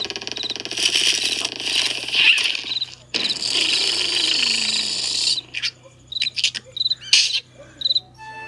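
Cartoon snoring: two long breathy snores, the second with a falling tone, then a few short snorts, over steady cricket chirping.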